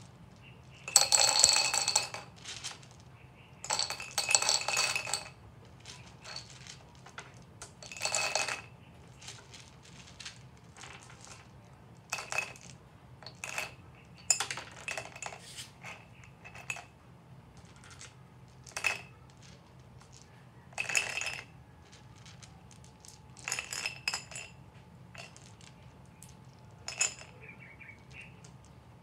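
Blue craft gems clinking and rattling as handfuls are dropped into a glass vase, in a dozen or so short clattering bursts a second or two apart, the loudest in the first few seconds.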